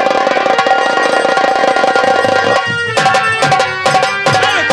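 Live nautanki theatre music: fast drumming under steady held melody notes. A dense roll breaks about two and a half seconds in into separate sharp drum strokes, some of which bend down in pitch.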